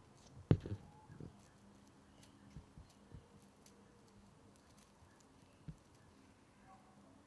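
Handling bumps on a handheld camcorder: one loud thump about half a second in, a few smaller knocks just after, then occasional soft knocks over a faint steady hum.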